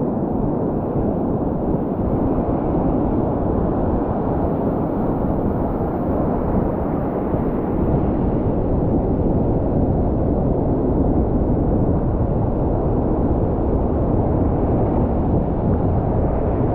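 Ocean surf breaking and washing up the beach, heard as a steady, loud rushing noise, mixed with wind buffeting the microphone.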